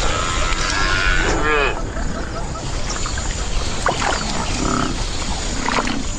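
Cape buffalo herd: a few short calls, about a second and a half in and again near five seconds, over a dense, steady low rumble.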